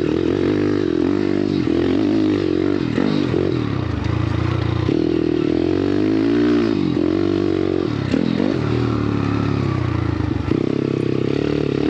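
YCF Bigy pit bike's single-cylinder four-stroke engine ridden hard on a dirt track. Its pitch climbs under throttle and drops off every second or two as the rider opens and shuts the throttle through the corners.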